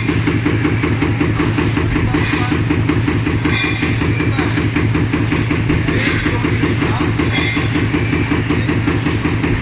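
Paper cup blank roll die punching machine running steadily, a rhythmic mechanical clatter with a punching stroke repeating about one and a half times a second.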